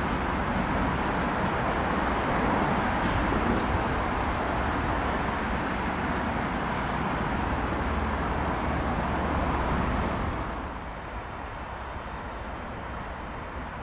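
Freight train wagons rolling past on the rails, a steady rumble. About ten seconds in it drops to a quieter background.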